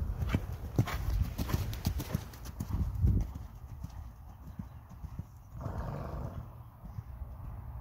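Hoofbeats of a ridden horse on the sand of a riding arena, a quick run of strokes that are loudest for the first three seconds as the horse passes close, then fade as it moves away.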